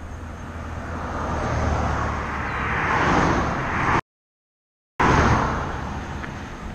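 A Chevrolet HHR passing close by on asphalt: its tyre and engine noise swells as it approaches and fades as it goes away. At its loudest the sound drops out completely for about a second.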